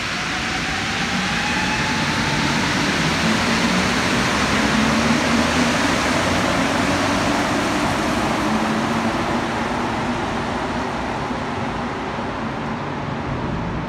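STM Azur (MPM-10) rubber-tyred metro train accelerating out of the station. A rising motor whine in the first few seconds sits over the rumble of its running gear, which is loudest about five seconds in and then slowly fades as the train pulls away.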